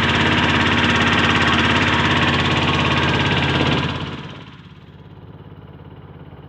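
Engine of a small wooden river boat running steadily under way; about four seconds in it drops sharply to a much quieter, muffled hum.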